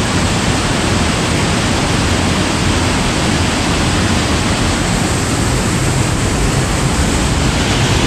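Scaleber Force waterfall in spate after heavy rain, Black Gill Beck pouring over the falls: a steady, loud rush of water heard close up.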